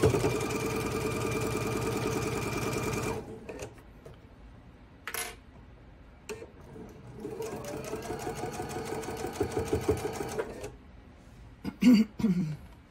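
Electric sewing machine stitching a seam. It runs steadily for about three seconds, stops, then starts again and speeds up for another three-second run. A single click falls in the pause, and a short, louder sound comes near the end.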